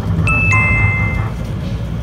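A two-note electronic chime, the second note lower, sounds inside a moving JR special rapid train, over the train's steady low running rumble.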